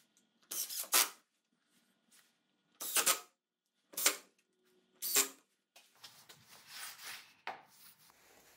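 DeWalt cordless driver driving screws through a plywood sled base into its fence, in four short bursts with pauses between. Softer handling and rustling follow near the end.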